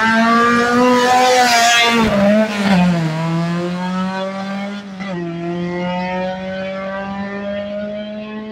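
Drag-racing cars launching off the start line and accelerating hard down the strip. The engine note climbs, then drops at gear changes about two and a half and five seconds in, and grows fainter as the cars pull away.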